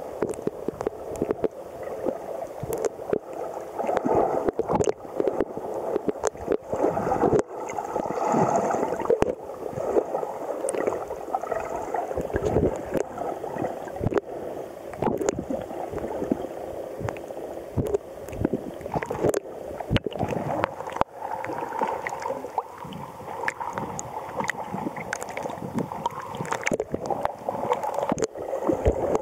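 Muffled water sound picked up by a camera held just under the surface: water sloshing and gurgling around it, swelling and fading irregularly, with many small sharp clicks and pops.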